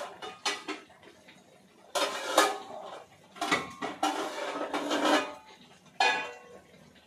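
Stainless steel plates and utensils clattering and clinking as they are handled and set down. The noise comes in several irregular bursts, loudest and longest from about three and a half to five seconds in.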